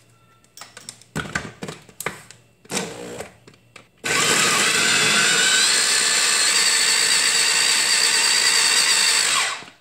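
Clicks and knocks as the motor unit of a Moulinex mini chopper is set onto its bowl, then about five and a half seconds of the chopper's motor running, grinding chillies, tomato, onion and spices into a paste. Its whine rises a little partway through, and it stops suddenly.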